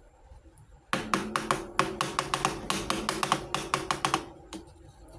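A fast run of sharp clicks and taps of small hard toy pieces, about five or six a second, starting about a second in and stopping near the end, over a faint low steady tone.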